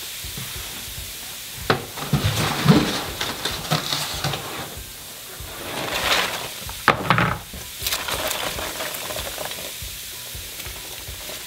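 Polystyrene foam packing peanuts sizzling and crackling as they dissolve in acetone nail polish remover in a plastic tub. A louder rustling patter comes about six seconds in as more peanuts are poured in.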